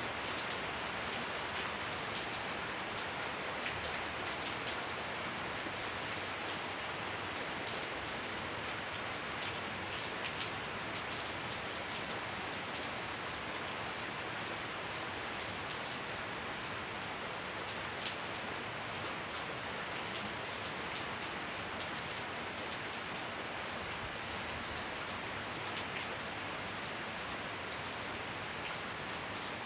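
Steady rain falling on a wet concrete yard and leafy plants: an even hiss dotted with many small drop taps.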